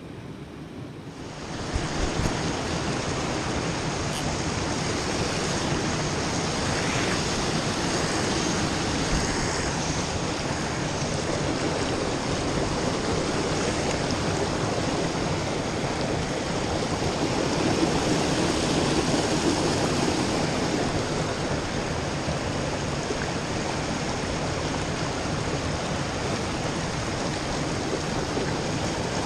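Creek water rushing over a shallow rocky riffle: a steady rush that comes in suddenly about a second and a half in, after a quieter start.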